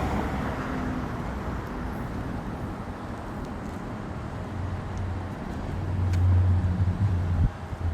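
Low rumble of road traffic. It swells to its loudest about six seconds in, then drops away abruptly near the end.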